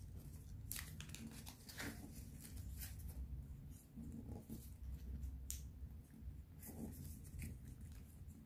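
Square of coloured origami paper being folded and creased by hand: faint, scattered crinkles and rustles of the paper.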